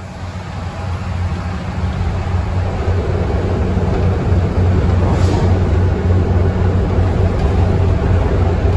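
Volvo B7TL bus's six-cylinder diesel engine thrashing hard under power, heard from inside the passenger saloon. It grows louder over the first few seconds, then holds steady.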